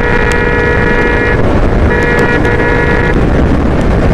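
A vehicle horn sounds one steady note, cuts off about a second and a half in, then sounds again for about a second. Underneath is the constant rush of wind and engine from a motorcycle riding at highway speed.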